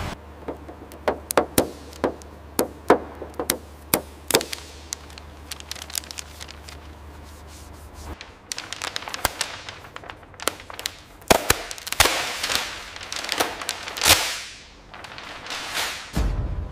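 Sharp mechanical clicks and knocks from assembly-line equipment over a steady low machine hum. The hum cuts off about eight seconds in, leaving scattered clicks and a few brief rushing, rubbing noises.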